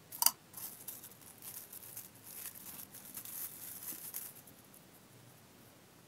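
A sharp click just after the start, then thin plastic packaging bag crinkling and tearing for about four seconds as it is opened to unwrap a carabiner bottle holder.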